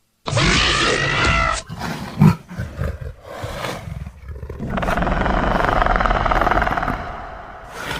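Velociraptor creature sound effects: a loud shrieking call that falls in pitch, then short grunts and a sharp knock, then a long, rattling growl lasting about three seconds.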